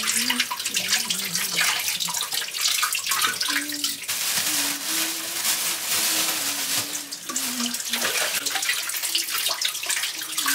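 Tap water running steadily into a sink, with splashing and small clatters of things being rinsed under the stream.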